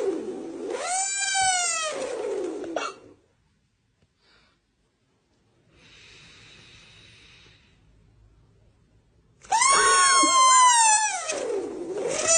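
Loud, high wailing sounds that slide down in pitch and swoop back up, one fading out about three seconds in and another starting near the end, with a faint hiss in the quiet between them.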